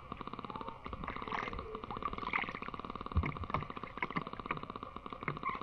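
Water sloshing, splashing and dripping as a folding net shrimp trap is hauled up out of a pond, with a low thump a little after three seconds in. A steady, rapidly pulsing animal chorus carries on underneath.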